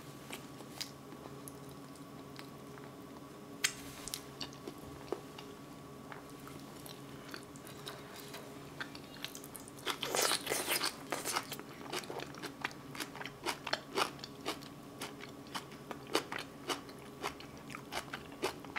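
Close-miked eating sounds: a few wet mouth smacks at first, then a bite about ten seconds in that sets off a dense run of crunchy chewing and lip-smacking clicks, over a faint steady hum.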